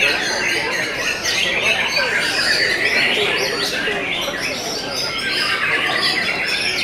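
White-rumped shamas (murai batu) singing: a continuous, varied song of rapid whistled notes, several birds overlapping at once.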